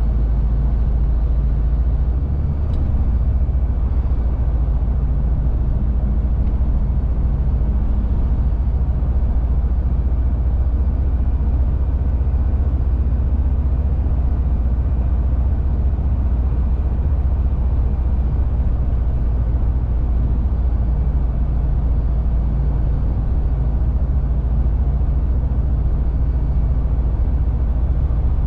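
Shacman X3000 heavy truck under way, heard from inside the cab: a steady low engine drone over road rumble.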